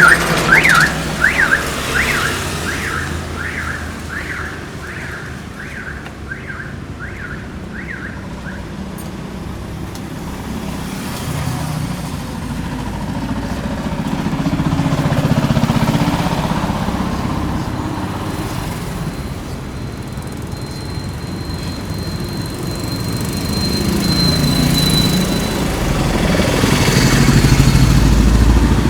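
Street traffic: a rising electronic chirp, like a vehicle alarm, repeats about twice a second for roughly the first eight seconds. Then vehicles pass with a rumble that swells and fades, and a faint high steady tone sounds for several seconds in the middle.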